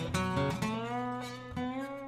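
Background acoustic guitar music: a few plucked notes that ring out, one sliding upward in pitch, dying away toward the end.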